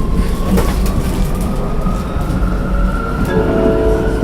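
Interior of a Vienna tram pulling away: the electric traction motor whine rises slowly in pitch as it gathers speed over a steady low rumble from the wheels and running gear. A few steady tones come in near the end.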